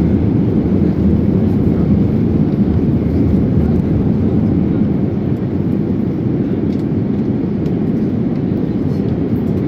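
Steady airliner cabin noise aboard an Airbus A321neo on its descent to land: a constant low rumble of engines and rushing air with no change in level.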